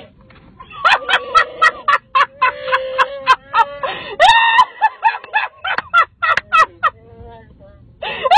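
Electronic Chewbacca mask playing its recorded Wookiee roar over and over as the wearer's mouth opens. It is mixed with her breathless laughter in rapid short pulses. The sounds die down briefly near the end, then a roar starts again.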